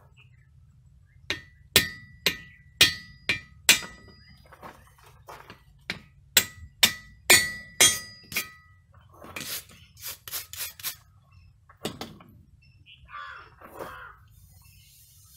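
Hand hammer striking a tool held in tongs against a red-hot axe head on a railroad-rail anvil: sharp metallic clanks that ring, about two a second, a dozen or so in a row. Then a quicker, duller group of blows and one last single blow.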